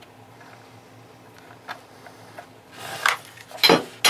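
Handling noise from a Mossberg 500 pump shotgun on a padded gun case: faint ticks as a sling attachment is worked at the buttstock, then a rustle about three seconds in and a loud knock followed by a sharp click near the end as the stock is moved.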